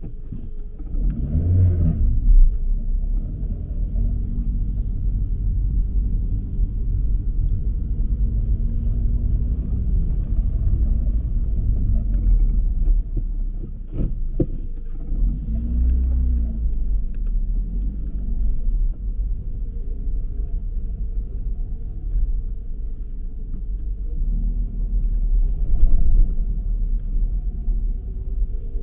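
Low, steady rumble of a car being driven, with the engine note rising and falling briefly a few times.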